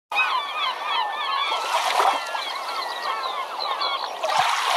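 A flock of birds calling, many short overlapping calls.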